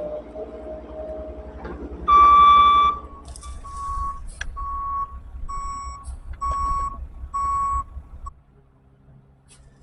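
Heavy earthmoving machine's engine running while its backup alarm sounds: one long beep, then a string of about six short beeps, roughly one and a half a second. The engine rumble cuts off near the end.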